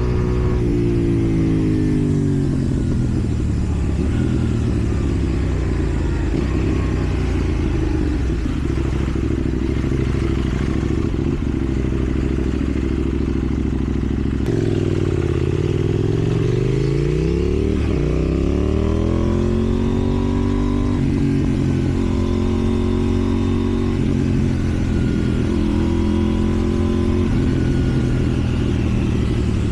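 KTM 790 Duke's parallel-twin engine heard through a slip-on exhaust while riding: the revs fall at first as it slows, hold fairly steady, then about halfway drop and climb again as the bike accelerates before settling.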